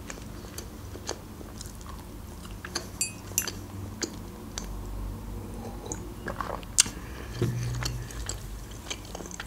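Close-miked mouth sounds of a person chewing a bite of soft pizza, with scattered small wet clicks and a brief clink about three seconds in.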